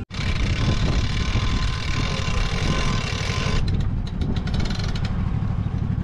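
Lucas portable swing-blade sawmill's engine running steadily with the blade spinning. About three and a half seconds in, the higher hiss falls away while the engine note carries on.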